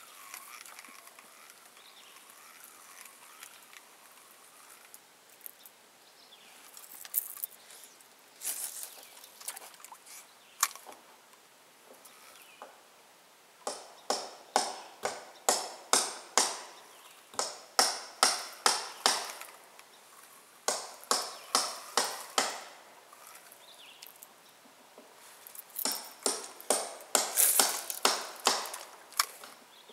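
Small waves slapping against the side of the boat in two runs of sharp, quick slaps, a few a second, the first starting about halfway through.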